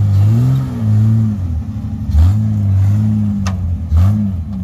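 Lifted off-road 4x4's engine revving in repeated bursts under load, its pitch rising and falling about four times as it claws up a steep mud bank. A sharp knock sounds late on.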